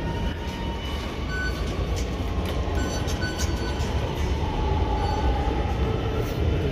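Low rumble of an Orange Line metro train running through the station, with a wavering squeal about halfway through, over concourse echo and a few short electronic beeps from the fare gates.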